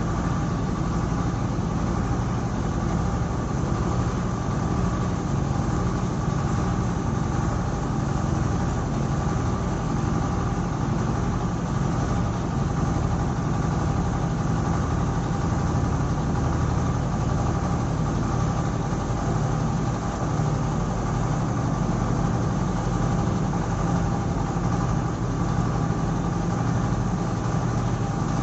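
Mobile construction mixer's engine running steadily at an even speed, with a deep, unchanging hum.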